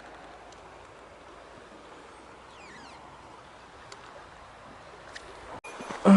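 Steady rush of a mountain stream's flowing water. Right at the end, after a brief break, comes one loud short sound that falls sharply in pitch.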